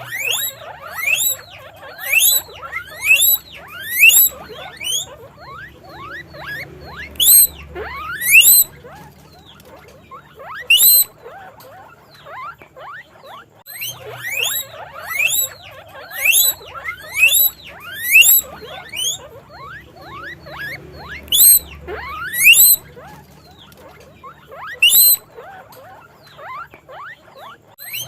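Guinea pig wheeking: loud squeals that each sweep sharply upward in pitch, repeated about once a second in runs with short lulls between.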